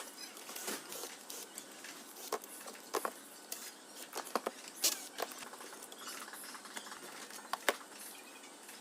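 Faint, scattered light clicks and taps of small parts and tools being handled on a workbench during the board replacement, with a few sharper ticks, the clearest near the end.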